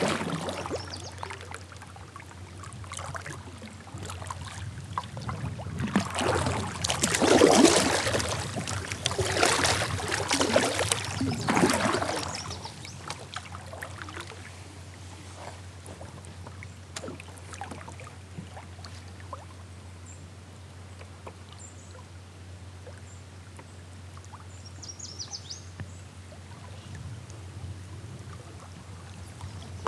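Kayak paddle strokes splashing and sloshing in the river water, several strokes in the first twelve seconds, then quieter water with a few faint ticks.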